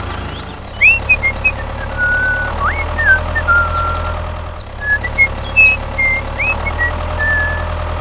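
Tractor engine running with a steady low drone, with high chirping whistles over it.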